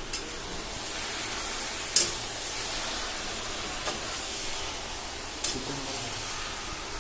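Chicken pieces sizzling in hot oil with fried onions, a steady hiss. Four sharp knocks against the pan are spread through it.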